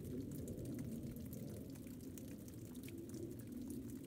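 Low, steady rumble of a Boeing 777 airliner's jet engines, heard from the ground as it cruises high overhead, wavering slightly in strength.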